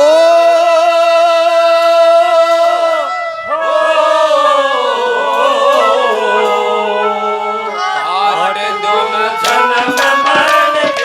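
Live Haryanvi ragni music: a long held note for about three seconds, then a wavering melody line, with drum strokes coming in near the end.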